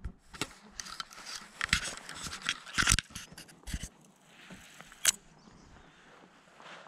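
Close rustling, scraping and clicking of clothing and fishing gear as someone moves and handles tackle on a mossy bank, busiest in the first four seconds, with one sharp click about five seconds in.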